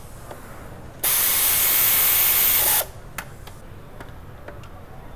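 A loud, steady hiss of pressurised spray, just under two seconds long, starting about a second in and cutting off sharply. A few light metallic clicks of hand tools follow.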